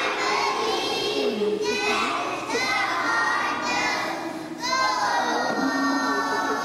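Many children's voices at once, talking and singing together in a large echoing hall, with loud high calls about two seconds in and again near the end.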